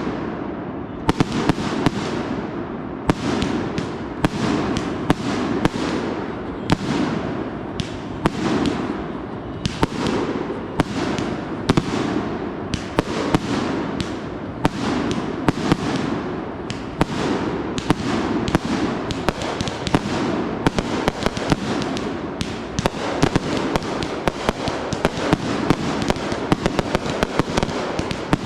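Consumer fireworks show in full fire: a continuous run of sharp shots and bursts, several a second, with no pause between them.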